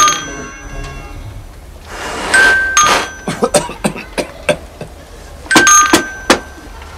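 Two-tone doorbell rung again and again, each ring a falling ding-dong, about every three seconds. Between the rings comes a quick run of sharp knocks.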